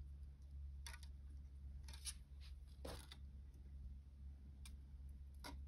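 Faint clicks and scratches of thin copper wire as it is pulled through and against the coils of a wire-wrapped cuff: four soft ticks spread over a few seconds, over a low steady hum.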